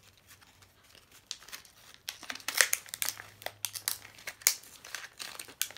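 Plastic packaging of a squishy keychain crinkling as it is handled and pulled open, irregular crackles starting about a second in.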